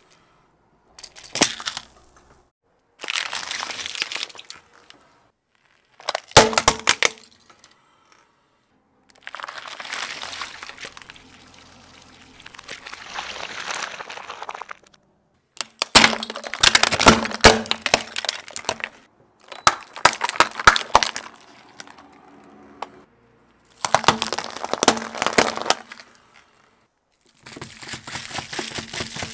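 Objects crushed one after another under a car tyre: about eight separate bursts of cracking and crunching plastic and packaging, each a second or two long and cut off by silence. Around the middle comes a longer, softer stretch as a bowl of water beads is crushed, and near the end juice cartons burst under the wheel.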